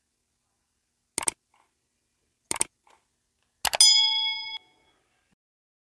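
Subscribe-button animation sound effects: two mouse clicks about a second and a half apart, then a third click followed by a short bell ding that rings for about a second.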